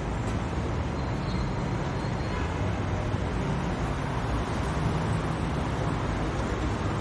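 Steady traffic noise: an even rumble of road vehicles with a light hiss above it.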